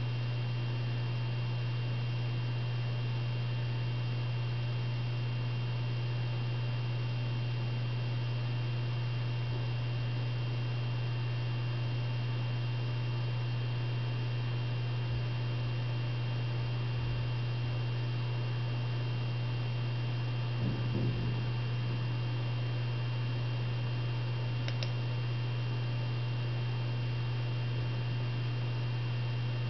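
Steady low electrical hum with faint steady high tones above it, and a brief soft bump about two-thirds of the way through.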